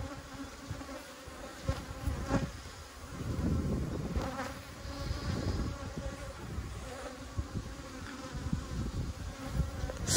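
Honey bees buzzing in a steady hum around an open hive, with a few brief knocks about two and four seconds in.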